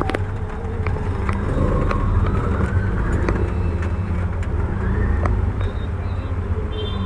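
A motor vehicle's engine running with a steady low rumble. A rising whine comes in about a second and a half in and again near the middle, with a few small clicks.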